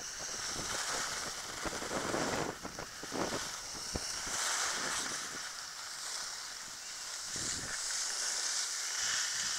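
Wind buffeting the microphone over a steady hiss, the low rumble easing off about halfway through, with a single brief knock about four seconds in.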